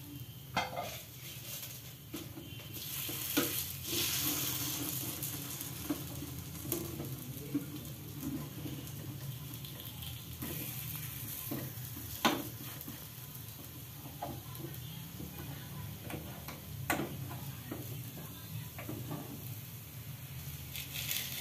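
Wingko cakes sizzling steadily in a metal wingko mould pan on a gas stove, with a fork scraping and clicking against the pan as the cakes are lifted and turned. There are scattered sharp clicks, the loudest about twelve seconds in.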